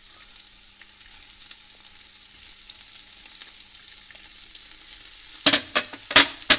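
Chopped root vegetables and onions sizzling steadily in hot oil in a steel stockpot as they brown for a brown sauce base. About five and a half seconds in come a few sharp clatters at the pot.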